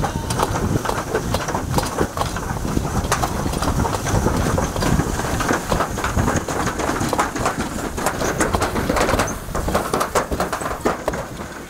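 Toboggan sled riding down a metal slide chute: a continuous rumble of its wheels on the track with many small rattles and knocks.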